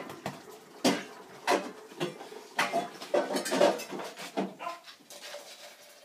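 Bowls and dishes clattering and clinking in a kitchen sink as a puppy climbs among them and licks them clean, with a few short vocal sounds from the dog. The clatters come in separate knocks every half second or so and fade out near the end.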